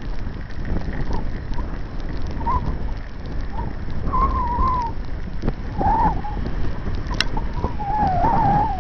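Wind noise rumbling on the microphone of a camera moving along a wet path, over a steady hiss. A wavering whistling tone comes and goes several times in the second half, and there is one sharp click about seven seconds in.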